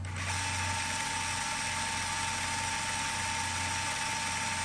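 Film projector running as a rewind sound effect: a steady mechanical whirr with a steady high whine over it, starting suddenly just after the beginning.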